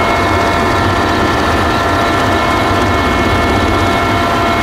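Helicopter engine and rotor heard from inside the cabin: a loud, steady drone with several steady high-pitched whines on top.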